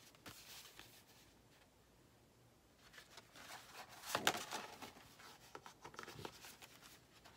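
Faint rustling and light handling of a paper and card insert folder, with a louder rustle about four seconds in.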